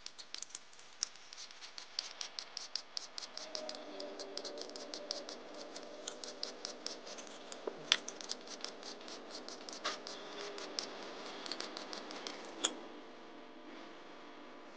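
Vegetable peeler scraping the skin off a raw purple sweet potato in quick repeated strokes, several a second, stopping about 13 seconds in with a sharp click.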